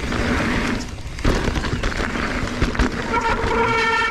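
Mountain bike front brake squealing with a loud, honking, horn-like tone as it is applied, starting about three seconds in. Before it, wind and tyre rumble on a dry dirt trail, with a few knocks from the bike over rough ground.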